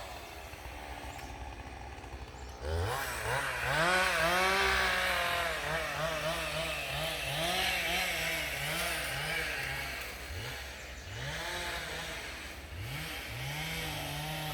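Chainsaw cutting, its engine revving up about three seconds in and running high for several seconds, then dropping back and revving up again a few more times.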